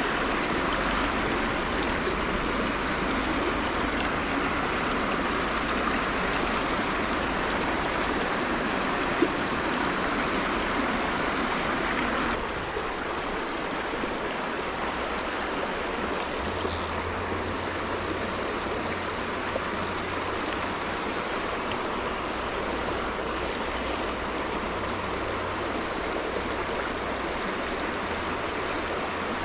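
Small rocky creek running over riffles and little cascades, a steady rush of water that becomes a little softer about twelve seconds in. A single sharp click comes about nine seconds in.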